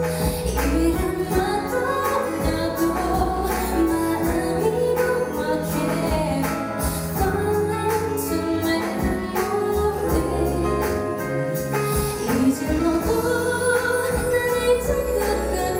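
A woman singing an emotional pop song live into a handheld microphone, over instrumental accompaniment with a steady beat.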